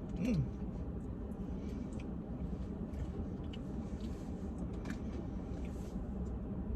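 Faint scattered clicks and crinkles of a plastic dipping-sauce cup being pried open, over a steady low hum.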